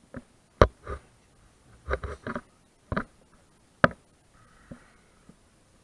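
Several sharp knocks and clicks with brief rustling between them: climbing gear and hands moving close to the camera.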